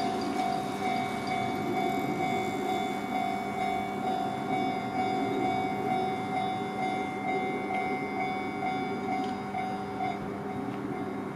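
Japanese level-crossing warning bell ringing as a steady tone, over the continuous rumble of a train running through the crossing.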